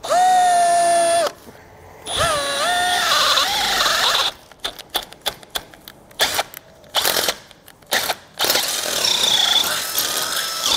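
Cordless drill with a 3/8-inch bit drilling out mounting holes through the base plate into the vehicle's metal frame. The motor whines up to speed in several runs: a steady whine of about a second first, then longer stretches of cutting, with short stop-start bursts in the middle.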